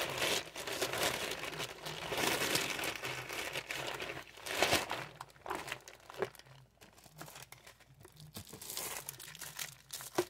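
Small clear plastic packaging bags crinkling as they are handled, dense for the first five seconds or so, then thinning to scattered crackles and clicks.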